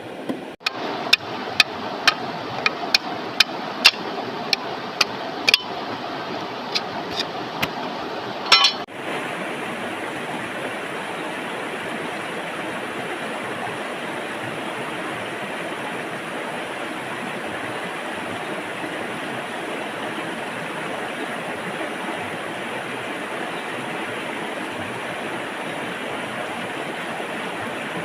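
A run of sharp clicks or taps, about two a second, over a steady rushing noise, breaking off about nine seconds in. From there only the even rushing of flowing water remains.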